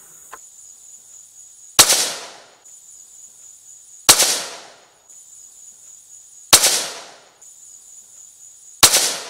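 Four .17 HMR rifle shots, a little over two seconds apart, each a sharp crack trailing off over most of a second. A steady high insect drone runs underneath.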